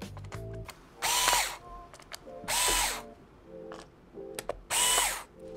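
Cordless electric screwdriver running in short bursts as it backs out a laptop battery's retaining screws. Three louder bursts of about half a second each, with shorter, softer ones between.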